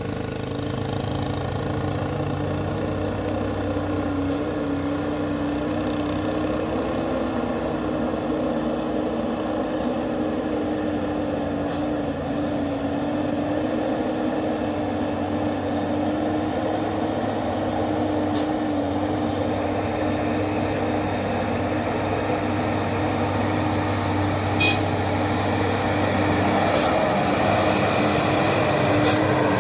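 Dump truck engine running under steady load, a continuous droning note with a low rumble beneath it that grows slightly louder near the end.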